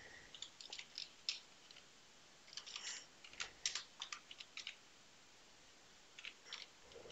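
Faint computer keyboard typing: quick key clicks in three bursts, with short pauses between them.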